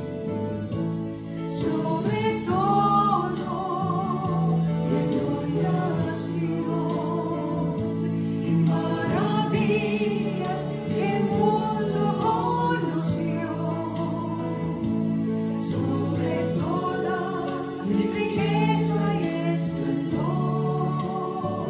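Music: a slow song with a singing voice, its melody wavering with vibrato, over sustained accompaniment chords.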